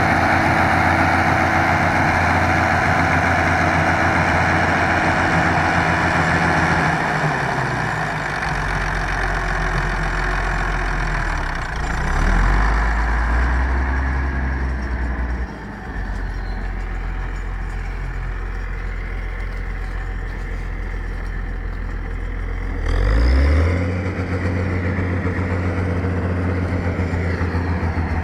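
A large four-wheel-drive tractor's diesel engine running under load as it pulls a mounted reversible plough through the soil. It settles lower after about seven seconds and rises briefly in revs twice, at about twelve and twenty-three seconds, as the plough is lifted and turned over at the headland and the tractor pulls away again.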